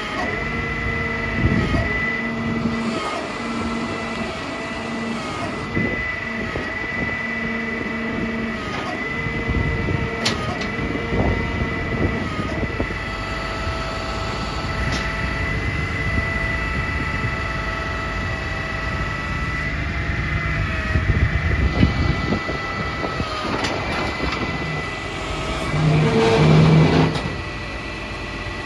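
Ford F650 Altec digger derrick truck running its hydraulic drill: a steady mechanical drone with a high, constant whine and a few light knocks. It gets briefly louder near the end.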